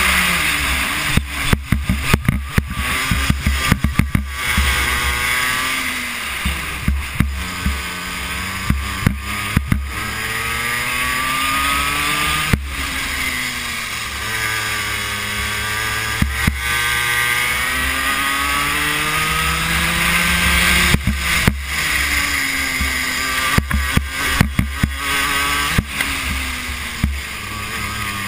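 Racing kart engine heard onboard at speed, its pitch climbing and dropping several times as it revs up along the straights and falls away into the corners. Clusters of sharp knocks and thumps come through early and again near the end.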